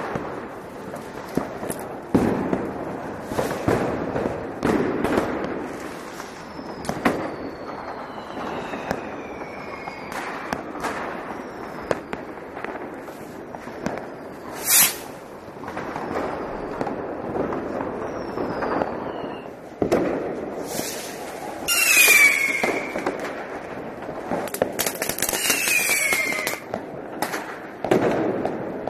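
Firecrackers and fireworks going off: irregular bangs, a few falling whistles, and two bursts of dense crackling about two-thirds of the way through.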